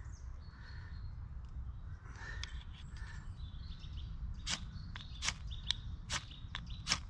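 Ferro rod scraped hard with a steel striker to throw sparks onto tinder: about six short, sharp scrapes in the second half, roughly one every half second, after a few faint clicks of handling. Faint birdsong sits in the background.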